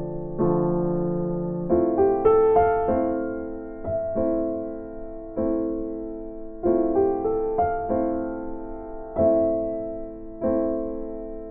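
Background piano music: gentle chords struck every second or so, each fading before the next.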